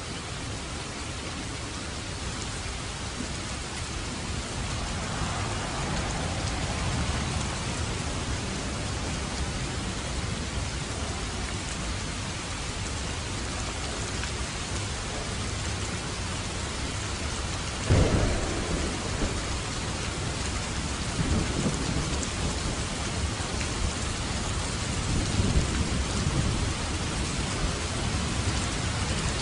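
Steady rain falling, with thunder: a sudden crack about two-thirds of the way through, followed by low rolling rumbles.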